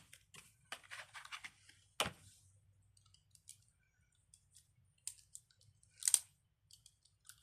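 Scissors cutting open plastic packaging: scattered faint snips and crinkles, the sharpest about two seconds in and again about six seconds in.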